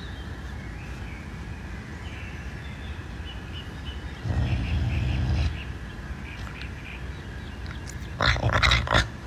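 A caracal growling over raw chicken wings: a short low growl about halfway through, then a louder growl with rough, crackling noise near the end as it bites into the wings.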